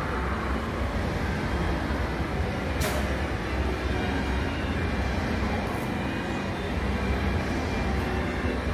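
Steady low-rumbling background noise of a large, busy shopping-mall atrium, with one sharp click about three seconds in.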